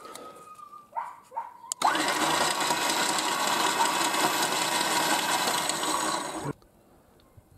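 Electric 12,000 lb winch motor running under power through its newly replaced gearbox, spooling the cable in, steady for about four and a half seconds and then cutting off suddenly.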